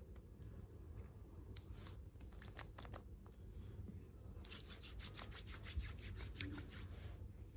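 Quick scratching and rubbing strokes on a surface, a few at first, then a fast close run of them through the second half.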